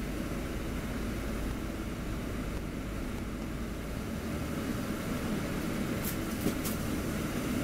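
Upper-deck cabin noise of a VDL DB300 Wright Pulsar Gemini double-decker bus on the move: a steady rumble of engine and road. The deepest part of the rumble eases about halfway through, and a few brief clicks come near the end.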